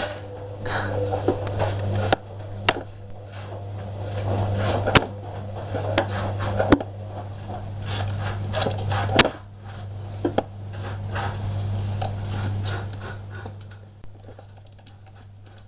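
Scattered light clicks, taps and rustling of a small pet moving about and handling things, over a steady low hum. The clicks thin out and fade near the end.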